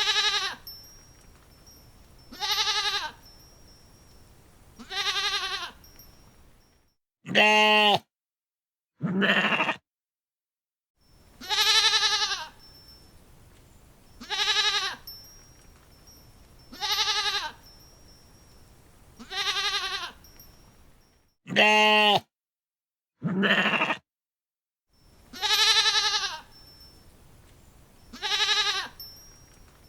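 Goat bleating over and over: about a dozen separate bleats, each under a second, a little over two seconds apart. Two pairs of deeper, louder bleats stand out with dead silence around them.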